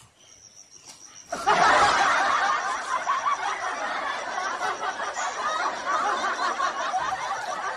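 Laughter from many people that comes in suddenly about a second and a half in and keeps going: an added laugh-track sound effect.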